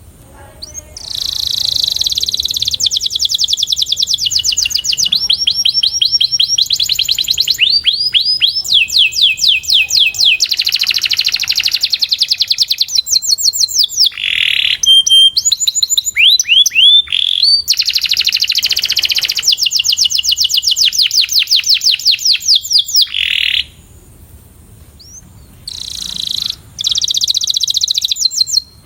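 Canary singing long, rapid trills and rolls of quickly repeated sweeping notes. The song changes from one trill to the next with hardly a break, pauses briefly near the end, then resumes.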